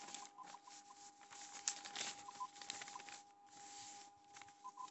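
Faint rustling and light ticks of notebook paper being handled as a page is turned, over a faint steady high-pitched hum.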